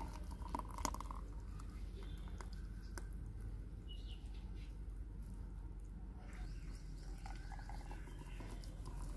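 Thick mango lassi pouring from a blender jar into a drinking glass, a faint soft patter of the liquid landing, with a few light clicks in the first second.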